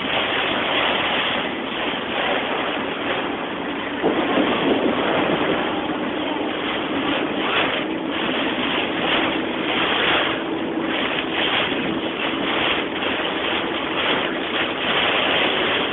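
Heavy storm rain and wind pounding on a moving car's windshield and body, a dense hiss that surges irregularly, with a faint steady hum joining about four seconds in.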